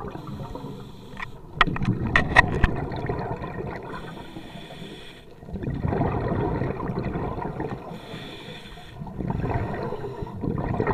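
Scuba breathing through a regulator underwater: three long gurgling exhalations of bubbles, about three and a half seconds apart, with a quieter hiss of inhalation between them. A few sharp clicks come early in the first exhalation.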